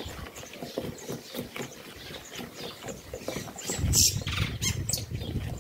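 Wooden spoon beating cake batter of margarine, sugar and egg in a bowl: rapid, irregular knocks and scrapes that get heavier about four seconds in.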